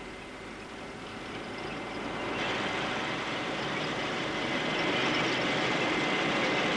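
Road vehicle noise: a steady rushing of engine and tyres that grows louder about two and a half seconds in, with a faint steady high tone throughout.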